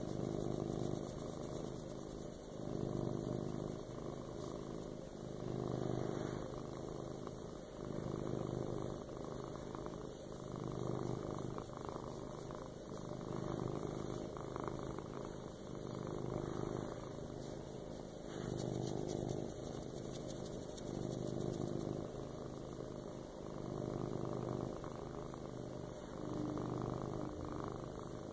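Tabby cat purring steadily as it is scratched under the chin and on the head, a contented purr. The purr swells and eases with each breath, about every two and a half seconds.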